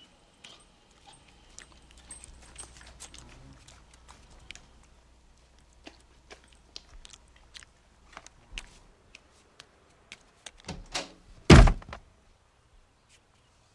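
Scattered faint clicks and ticks, then two thumps from a door near the end, the second much louder: the bathroom door being pushed into a person lying on the floor behind it.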